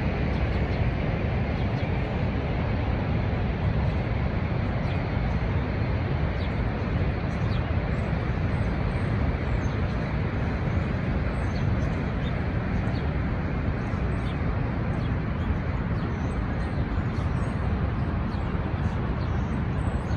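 Niagara Falls' falling water rushing in a steady, dense, unbroken wash, heaviest in the low end. Faint, short high chirps are scattered over it.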